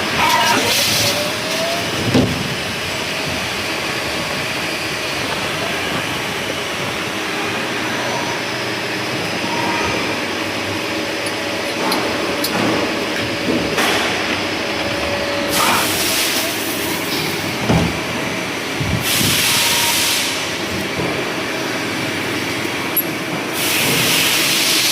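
CNC machine running with a steady mechanical hum, a few sharp clicks, and three loud bursts of hissing, each a second or two long, in the second half.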